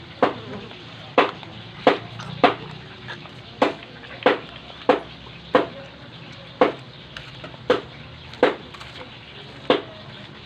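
Sharp crunches at roughly one a second, about a dozen in all, typical of close-up chewing of crispy fried chicken.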